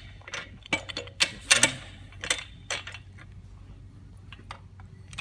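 Irregular clicks and knocks of the stand's parts being handled and fitted together, loudest and most frequent in the first two seconds, then sparser and fainter.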